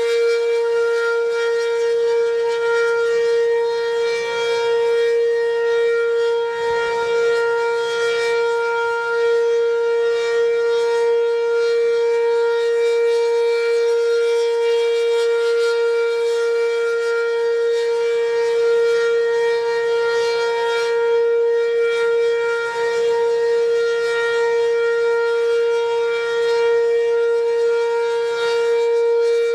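B&N Mobil Directo tornado siren sounding a steady, unwavering tone with many overtones: the steady alert signal of a tornado drill test.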